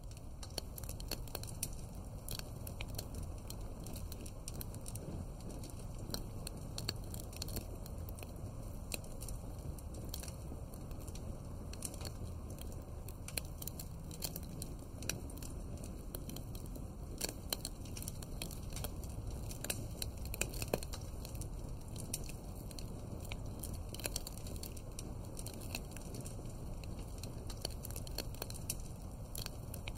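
Wood fire crackling: frequent sharp pops and snaps over a steady low rumble.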